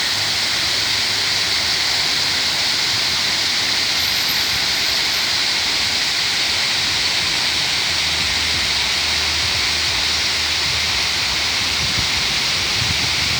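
Water pouring steadily down an artificial-rock waterfall, a constant even rush with no breaks.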